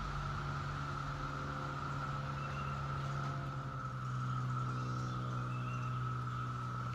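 Chorus of periodical cicadas droning steadily as one even, high-pitched hum. Under it runs a low motor hum that shifts in pitch about four seconds in.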